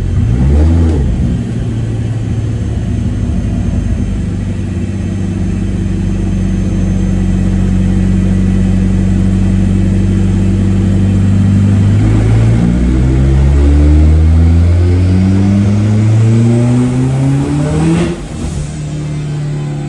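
Turbocharged, Honda K20-swapped Mazda RX-7 engine on a chassis dyno, heard from inside the cabin: it holds a steady speed for about twelve seconds, then is pulled hard, revs climbing with a high whine rising above them, until the power is cut off sharply near the end.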